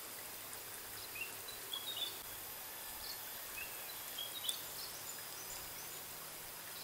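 Outdoor ambience: a steady hiss with short, high bird chirps scattered throughout, the loudest about four and a half seconds in.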